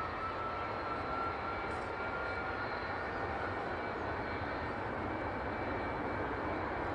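Jet airliner idling on its one remaining engine after the other failed from a bird strike: a steady jet whine and rush, with a whine tone that rises slightly about a second in.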